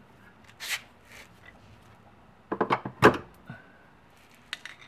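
Aluminium front control arm of a BMW E46 being worked loose by hand at its rear bushing mount: a brief scrape, then a cluster of sharp metal knocks past the middle, and a few light clicks near the end.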